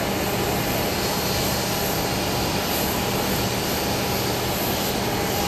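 Jet engines of an Airbus A320 on final approach with gear down: a steady rushing noise with a thin, steady high tone running through it.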